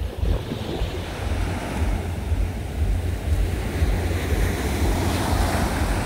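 Sea surf washing onto a sandy beach, with wind buffeting the microphone as a low rumble. A wash of surf grows louder about five seconds in.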